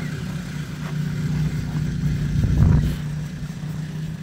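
A steady low engine hum, like a vehicle idling. About two and a half seconds in comes a louder stretch of rubbing and handling as a gloved hand presses the headlight bulb's rubber cover into place.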